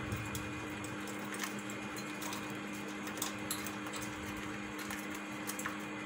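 Scattered light clicks and ticks of a budgerigar's beak and feet on its toys and the cage wires, over a steady low hum and hiss.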